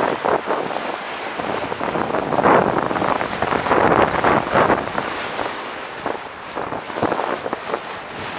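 Sea water rushing and splashing along the hull of a sailing yacht under way, swelling and easing with each wave, with wind buffeting the microphone.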